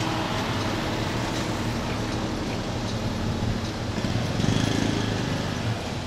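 Steady street noise with a low mechanical hum, swelling briefly about four and a half seconds in as a vehicle passes.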